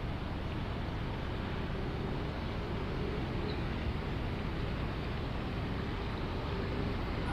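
Steady outdoor city background noise: a low, even rumble like distant road traffic, with no distinct events.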